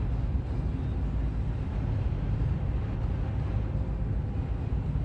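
Steady road and engine noise heard inside a car's cabin at about 45 mph on a snowy interstate: an even low rumble with a hiss above it.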